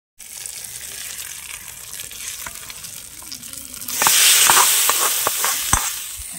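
Hot oil with mustard seeds, shallots and curry leaves sizzling and crackling in a small pan. About four seconds in it turns to a much louder hiss with a few sharp clicks as the tempering is poured onto the cooked cowpeas and plantain, then fades as it is stirred in.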